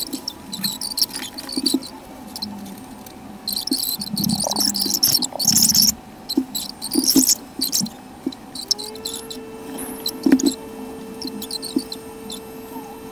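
Scratchy rustling bursts with small clicks from a tint brush and comb being worked through hair to paint dye onto the roots. About two-thirds of the way through, a steady humming tone comes in and holds.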